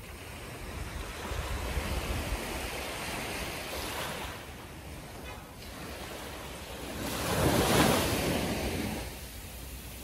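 Small waves washing up on a sandy beach in two swells, the second and louder one about three quarters of the way in.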